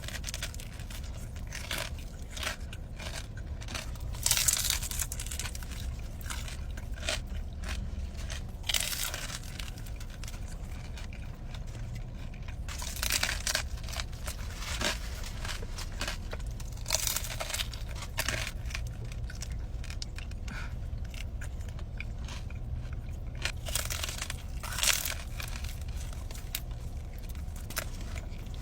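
Close-up crunching and chewing of crispy fried pork rinds (chicharrón), with sharp crackles coming in bunches with each bite, over a steady low hum.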